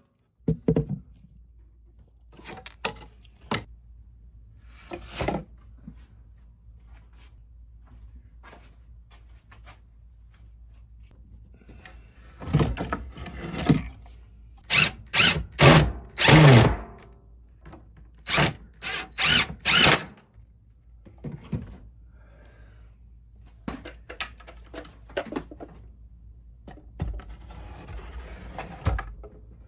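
A power drill run in short bursts of about half a second each, in two clusters through the middle, with scattered knocks and clunks of wooden parts being handled before and after.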